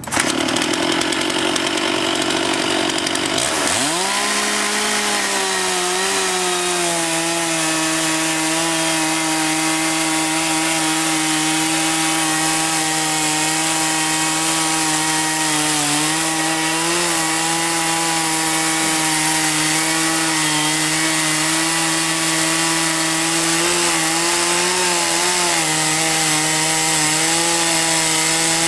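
Sawmill powering up: its motor sweeps up in pitch to running speed about four seconds in, then runs at a steady pitch, wavering slightly now and then.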